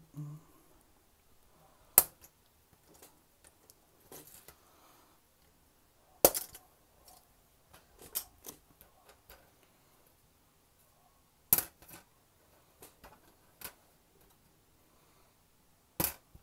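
Sprue cutters snipping plastic model-kit parts from the sprue: four sharp snips a few seconds apart, with fainter clicks of plastic and tool between.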